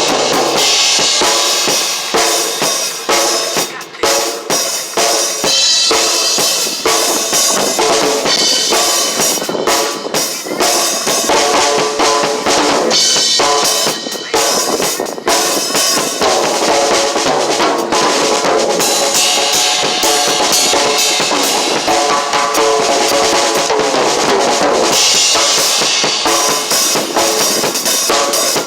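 Drum kit played continuously, with dense fast strikes on the drums and washes of cymbal throughout.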